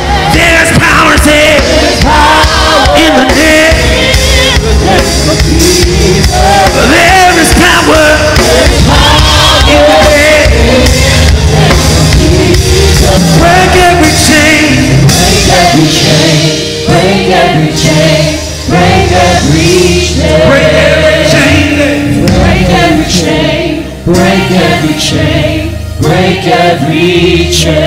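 Live worship band playing with a group of voices singing a gospel worship song, loud and continuous.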